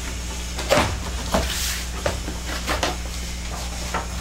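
Cardboard box being opened by hand: a string of short knocks, scrapes and rustles from the flaps and packaging, about six or seven in four seconds, the loudest about a second in.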